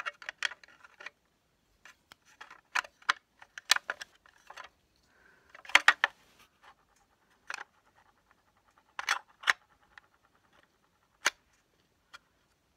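Hands handling a magnetic levitator toy and its clear plastic packaging: a string of sharp plastic clicks and taps, with faint scraping through the middle.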